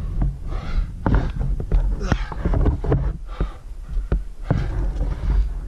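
A climber's heavy breathing under exertion in the thin air at about 6000 m, repeated short breaths in and out, mixed with sharp clicks and knocks from climbing hardware and hands on the granite, over a low rumble.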